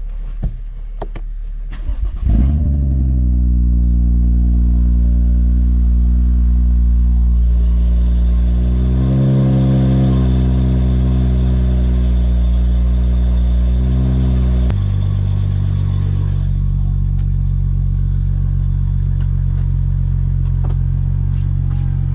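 BMW straight-six engine cold-started about two seconds in, running at a raised idle. About fifteen seconds in the idle drops abruptly to a lower, steady speed.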